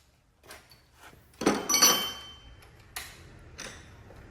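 Metal clanking and rattling of hand tools and loose bolts during work on a car's front suspension. It is loudest in a clattering spell about one and a half to two seconds in, with thin ringing notes, and a sharp click near three seconds.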